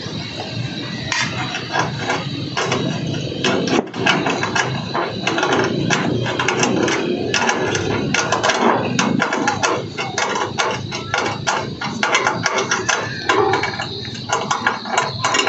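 A sealant-covered hand tool scraping and tapping against a corrugated metal roof sheet around a solar panel mounting bracket, a dense run of irregular clicks and scrapes.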